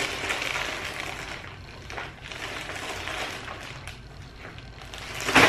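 Clear plastic packaging crinkling and rustling as two bagged tote bags are handled, with a short, louder crackle near the end.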